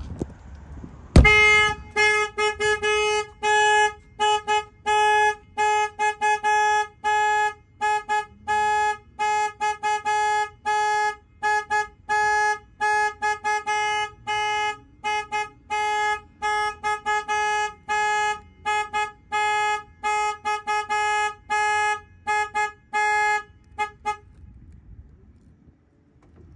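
A single bang on the truck's window about a second in, then the Kenworth T680's horn sounding in repeated short honks, about two a second, for some twenty seconds before it stops: the aftermarket alarm has been triggered by the knock on the window.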